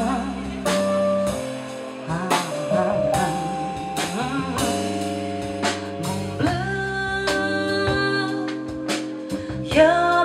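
Live band playing a slow jazzy ballad: sustained electric keyboard chords, electric bass and a drum kit with cymbal strikes, with a woman singing held notes between the lyrics.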